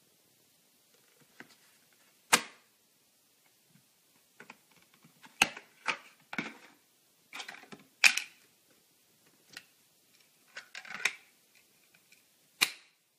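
A plastic pet-food can lid clattering as a cat bats and bites at it on a dishwasher door and a tile floor: a dozen or so sharp, irregular clacks, the loudest about two seconds in, around eight seconds in and near the end.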